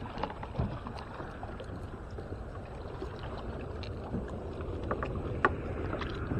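Steady water and hull noise from a fishing kayak on a lake, with scattered small clicks of gear being handled and one sharper click about five and a half seconds in.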